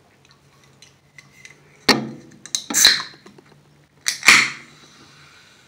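Aluminium can of sparkling water being cracked open: sharp clicks of the tab, each followed by a short hiss of escaping carbonation. The loudest click and hiss come about four seconds in.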